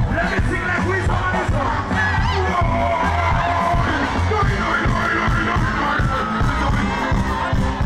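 Live band music played loudly over a concert PA, heard from within the crowd, with singing voices and the crowd shouting and cheering over it.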